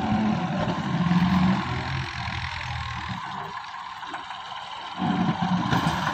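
Massey Ferguson 260 tractor's three-cylinder diesel engine working hard under a heavy trailer load. It runs loudest for the first second and a half, eases off, then surges again about five seconds in.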